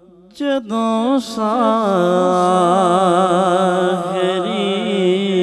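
Male voice singing the wordless opening phrase of a Punjabi naat: long held notes with wavering ornaments, starting about half a second in.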